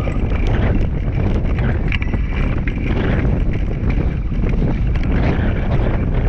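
Wind buffeting the microphone on a fast dryland run, with a rapid irregular patter of footfalls from two greyster sled dogs running in harness.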